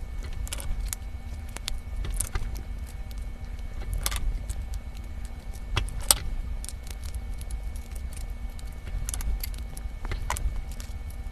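Close-miked eating sounds: irregular sharp clicks and clinks of surf clam shells and chopsticks as the clams are picked apart by hand, the sharpest about six seconds in, over a steady low hum.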